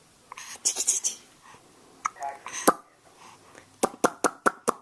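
A baby hiccuping: a short voiced hic ends in a sharp snap about two-thirds of the way through, after a second or so of breathy hiss. Near the end comes a quick run of about six sharp clicks.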